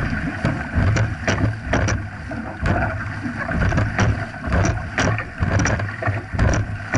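Dragon boat paddles stroking through the water at racing pace, each catch splashing, over water rushing along the hull and wind buffeting the microphone.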